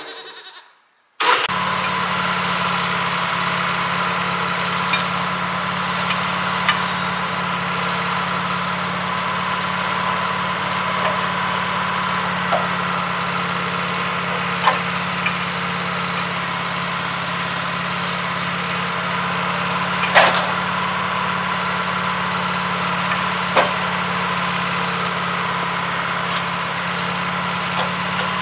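Portable sawmill's engine running steadily at a constant speed, after about a second of silence at the start, with a few sharp clicks scattered over it.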